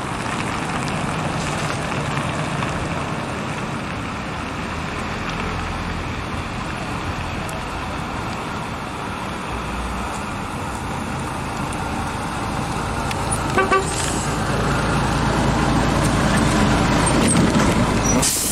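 Street traffic with an Ikarus 280 articulated bus's diesel engine drawing near, its low rumble growing louder in the second half. Two short horn toots come about two-thirds of the way through.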